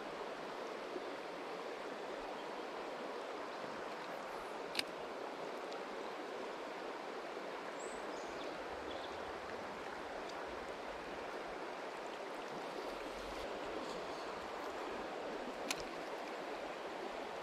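Steady rushing of a shallow river running over stones and riffles. A sharp click sounds about five seconds in and a fainter one near the end.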